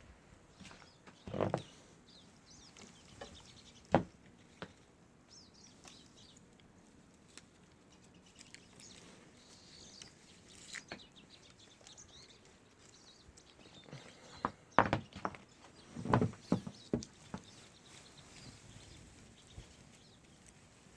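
Small songbirds chirping faintly, with a few scattered short thumps, the sharpest about four seconds in and a cluster of them around fifteen to seventeen seconds in.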